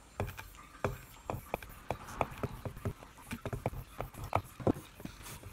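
Leather paddle strop being swiped quickly back and forth across an axe bit to hone the edge, each pass a short tap, about three to four a second.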